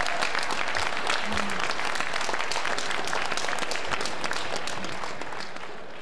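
Crowd of convention delegates applauding, a dense patter of many hands clapping that fades away near the end.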